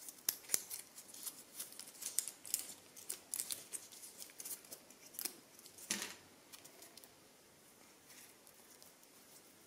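Faint crisp clicks and rustles of a coiled iPhone charging cable being unwrapped from its paper tie and handled, dying away about seven seconds in.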